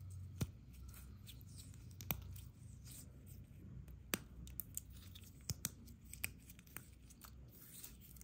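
Fingers crushing and mashing wet slate pieces into a paste, with quiet scraping and rubbing broken by about a dozen sharp cracks and crunches as the brittle shards snap.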